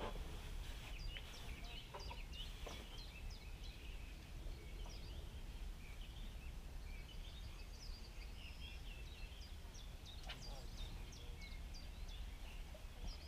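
Small birds singing in the reeds and trees, many short overlapping chirps and calls, over a low steady rumble of background noise. A few soft knocks come through, around two to three seconds in and again near ten seconds.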